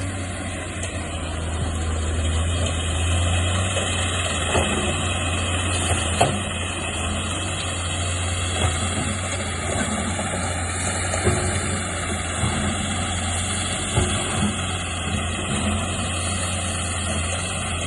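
Heavy-machinery engine running steadily, with several short knocks along the way.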